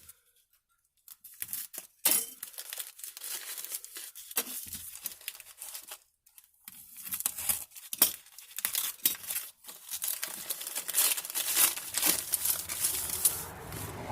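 Packaging being crinkled and torn open by hand, a long run of rustling with many small clicks, as a small padlock is unwrapped.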